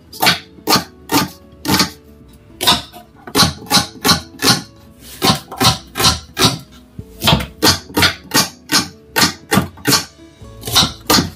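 Knife slicing an onion on a cutting board: sharp, separate chops about two to three a second, unevenly spaced. Background music plays underneath.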